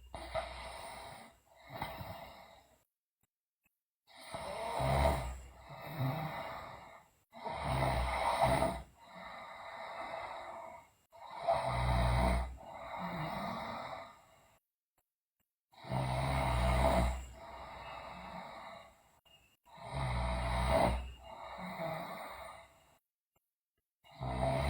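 A sleeping girl snoring loudly, about six slow breaths, each a loud snore on the breath in followed by a softer breath out, with short silent gaps between.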